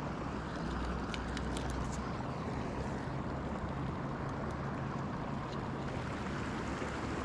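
Steady outdoor rushing noise with a low hum underneath, and a few light clicks about a second in as the folding landing net's hinge is handled.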